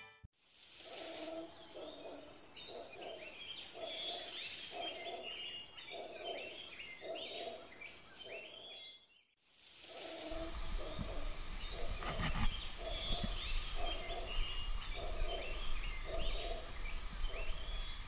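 Birds calling: a regular series of low hoots about twice a second under higher chirping and twittering. The calls break off briefly about nine seconds in, then resume with a low rumble underneath.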